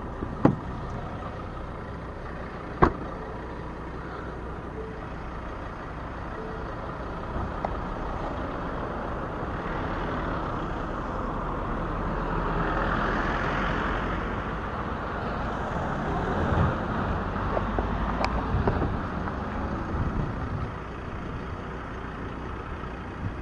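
A minivan driving past on a road, its engine and tyre noise building to a peak about halfway through and then fading. Two sharp knocks come in the first three seconds.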